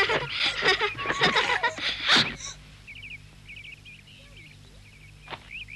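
A busy, loud stretch of mixed voices and clatter ends in a loud burst about two seconds in, giving way to small birds chirping softly and repeatedly.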